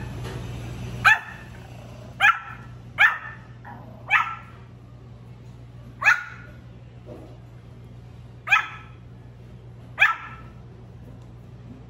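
Pomeranian puppy's little high-pitched barks, seven short single barks spaced unevenly one to two and a half seconds apart, over a steady low hum.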